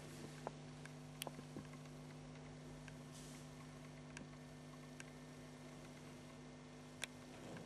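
Quiet room tone: a steady low electrical hum with a few faint, scattered clicks, the sharpest about seven seconds in.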